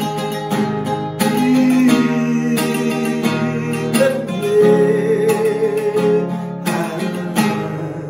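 Classical guitar strummed in a steady rhythm while a man sings long held notes of a hymn over it. Near the end the strumming stops and the last chord rings out and fades.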